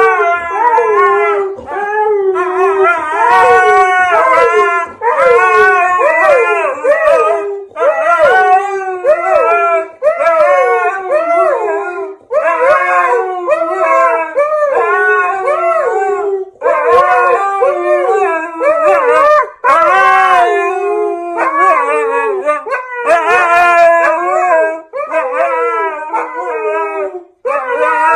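A dog howling in long, wavering phrases. The pitch bends up and down constantly, with short breaks between phrases.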